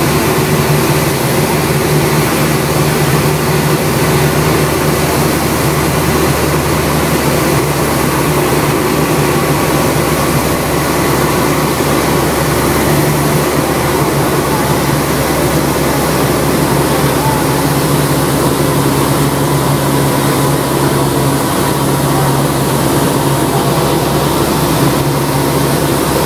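Cessna 172's piston engine and propeller droning steadily in flight, heard inside the cabin.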